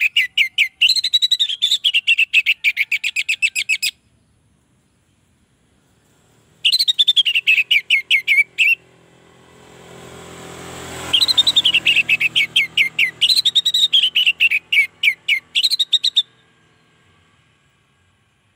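Orange-headed thrush singing: three loud bursts of fast, repeated whistled notes, each run lasting a few seconds with short pauses between. A low rumble swells up and fades in the background midway.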